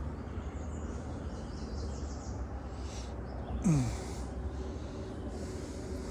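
Outdoor riverside ambience: a steady low rumble with faint high chirping on and off. A little past halfway there is a short sound that drops quickly in pitch, the loudest moment, and a faint steady hum follows it.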